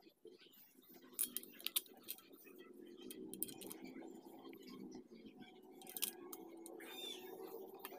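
Small metal screws clicking and clinking against the back plate of a Toa horn-speaker driver as they are set by hand into their holes. There is a quick cluster of sharp clicks about a second in and a single click near six seconds.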